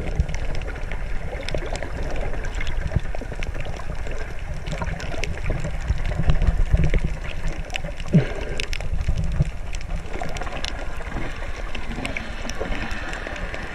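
Underwater sound picked up by a camera held below the surface: a muffled rumble and sloshing of moving water, with many small clicks and crackles scattered through it. A short sliding tone comes about eight seconds in.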